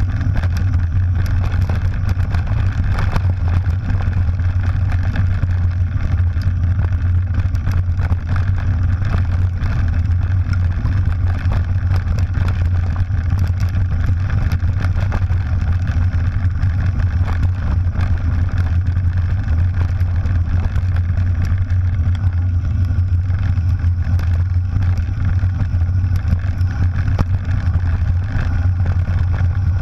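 Steady low rumble of wind and ride noise on a bike-mounted action camera as a mountain bike rolls down a loose gravel track, with many small knocks and rattles from the tyres and frame over the stones.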